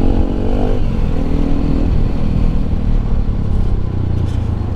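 Bajaj Pulsar RS 200's stock single-cylinder engine and exhaust on the move. The revs drop off in the first second and again about two seconds in, then the engine runs lower and steady.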